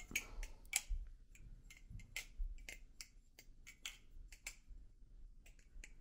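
Hazetac Jigsaw balisong trainer being flipped: a run of irregular, sharp metallic clicks as its aluminium handles swing open and shut against the tang pins.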